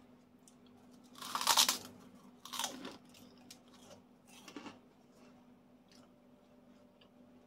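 Crisp puffed crackers (kerupuk) crunching as they are bitten and chewed: one long loud crunch about a second in, a shorter one a second later, and a softer one near the middle.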